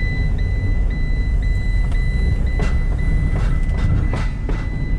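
A high-pitched in-cab warning beep sounding steadily with brief regular breaks, then stopping near the end, over the low rumble of the van's engine and tyres on the road.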